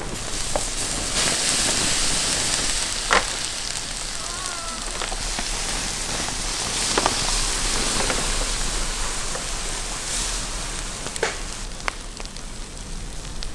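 Wood embers hissing and crackling under whole lambs roasting on spits, with a few sharp pops. Liquid poured over the meat sizzles as it drips onto the hot coals.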